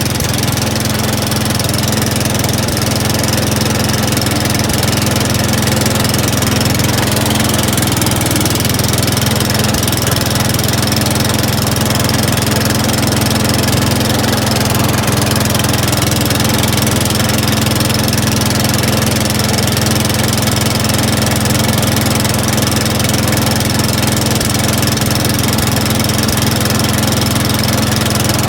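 Riding lawn mower engine running steadily and loud at an even speed.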